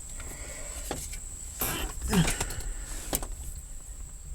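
Gear lever of a Toyota AE86's T50 five-speed manual being shifted from third into fourth on the stock shifter: a few separate clicks and clunks as the lever travels its long throw through the gate.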